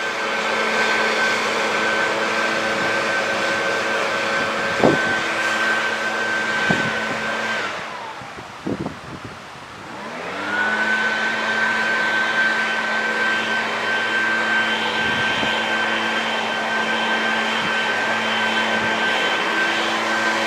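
A steady whirring electric motor, like a fan or blower, with a few sharp knocks. About eight seconds in it winds down, and about two seconds later it spins back up and runs steadily again.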